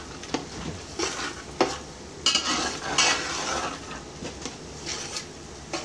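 Metal spatula stirring and scraping a masala of onions, tomatoes and green chillies frying in oil in a large metal pot, with a steady sizzle on a low flame. The spatula knocks against the pot about half a dozen times at irregular intervals.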